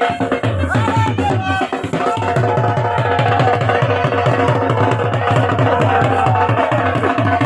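Dhol drum beating a fast, steady rhythm, with a wind instrument playing a wavering, gliding folk melody over it.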